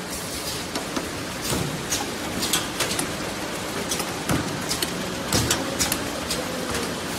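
Glass-jar filling line running: a steady machine hiss with frequent irregular sharp clicks and clinks of glass jars on the rotary table and conveyor.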